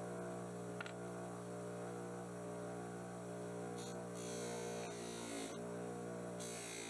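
Bench grinder motor running with a steady hum. About four seconds in, and again near the end, a short hiss as the steel knife blade is pressed to the spinning wheel.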